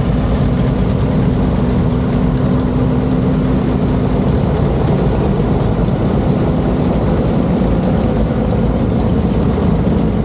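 Antique Oliver farm tractor engines idling: a steady low drone with no revving.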